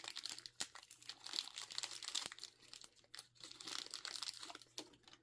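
Toy packaging crinkling and rustling with small clicks as a Beyblade X top's parts are handled and pulled from the box, dying away near the end.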